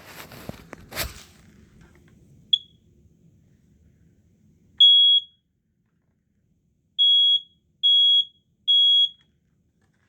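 A smoke alarm's piezo horn, the HD135F, sounding a high steady tone after a moment of handling clicks: one short chirp, then a single beep, then three beeps about a second apart in the standard three-beep alarm pattern.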